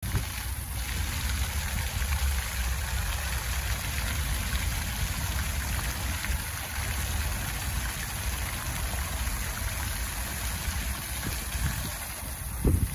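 Illuminated fountain jets falling back into the water with a steady splashing hiss, over a low rumble. A brief low thump comes near the end.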